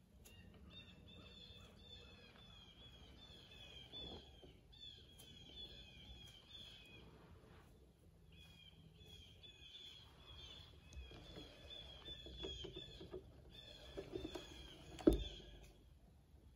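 A bird calling in long runs of quick, repeated high chirping notes, with a short break about halfway through. A single sharp snap or knock near the end is the loudest sound.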